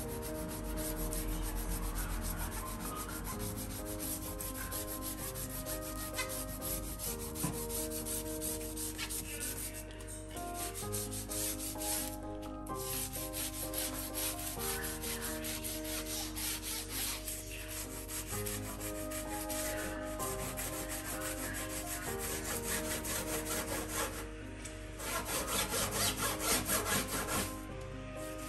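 Brisk back-and-forth scrubbing along the metal edge of a stainless steel gas hob. The rubbing breaks off briefly twice, about twelve seconds in and again near the end.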